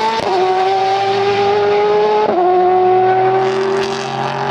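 Car engine at high revs shifting up twice, its pitch dropping suddenly at each gear change, about a quarter second in and again just after two seconds.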